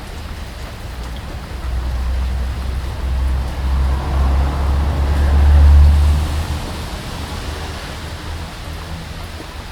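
Steady rain with a long low rumble of thunder that swells from about two seconds in, peaks around six seconds and fades away.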